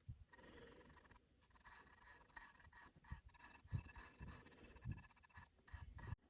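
Near silence, with the faint scratchy strokes of a paintbrush laying acrylic paint onto a cedar board and a few soft bumps.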